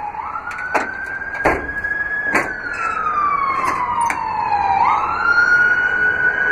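An emergency vehicle siren wailing, its pitch rising quickly, falling slowly, then rising again about two-thirds of the way through. Several sharp clicks and knocks over the first few seconds come from a paddle latch and steel compartment doors on the truck's utility body being worked by hand.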